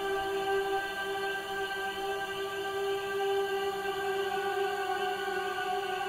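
Background music: a sustained choir-like drone holding one chord without change.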